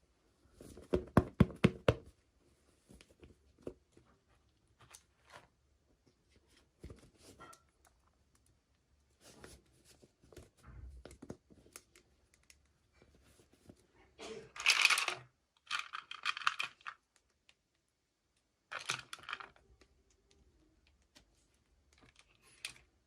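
Toy packaging being opened by hand: a quick run of sharp clicks near the start, scattered small taps, then a tear and plastic crinkling about two-thirds of the way through.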